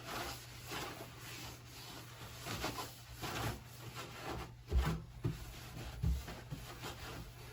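Repeated rubbing strokes of a cloth wiping down the sink deck where the faucet mounts, cleaning it before the new faucet goes on, with a dull thump about five seconds in.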